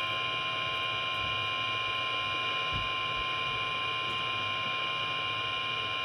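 NOAA Weather Radio warning alarm tone, a steady single pitch near 1050 Hz, sounding from a weather alert radio's small speaker. It signals that a warning, here a high wind warning, is being broadcast.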